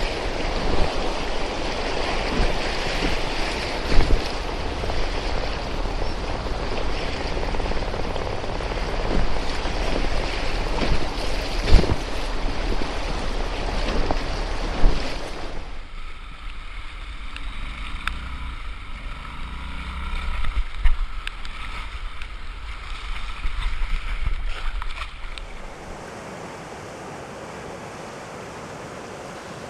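Rushing river water in whitewater rapids, with wind buffeting the microphone and occasional sharp thumps through the first half. About halfway it drops abruptly to a quieter rush of water, and near the end it becomes a steady, even hiss of flowing water.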